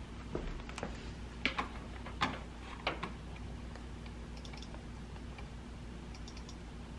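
A handful of sharp taps and knocks in the first three seconds, then a few faint, light computer-mouse clicks, over a steady low hum.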